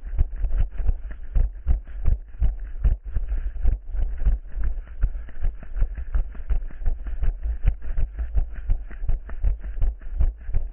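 An orienteering runner's footfalls, about three a second, thudding close to the microphone, with rustling between the steps.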